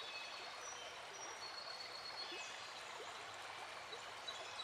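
Faint, steady background hiss of outdoor ambience, with a few faint, short, high bird chirps.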